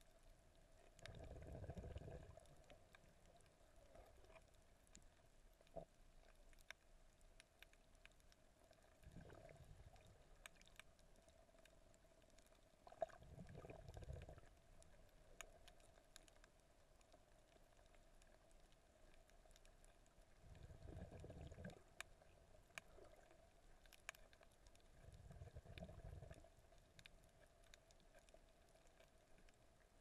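Faint, muffled underwater sound heard through a camera's waterproof housing: low swells of moving water every four to seven seconds, with scattered faint clicks.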